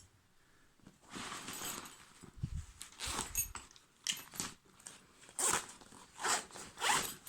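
Zippers on a cheap, unbranded backpack being pulled open, with the bag's nylon fabric rustling as it is handled; several separate zip strokes, the loudest in the second half.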